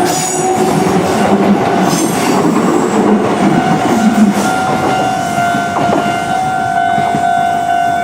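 A Kintetsu Nagano Line train passing close by, its wheels rumbling and clattering. A steady high squeal builds through the second half and cuts off suddenly at the end.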